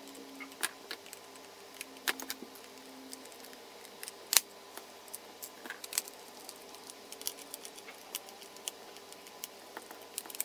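Scattered small clicks and taps of a screwdriver and hands on a plastic socket-strip housing as its backplate is screwed on. The loudest clicks come about 2 and 4 seconds in.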